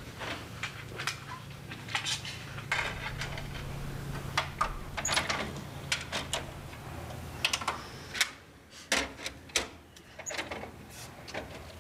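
A mini stereo system and a CD case being handled: an irregular run of sharp plastic clicks and clatter over a faint steady hum, the clicks thinning out after about eight seconds.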